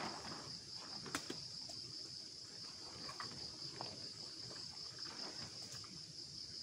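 Crickets chirping in a steady high-pitched chorus, with a few light clicks and knocks of gear being handled, the sharpest about a second in.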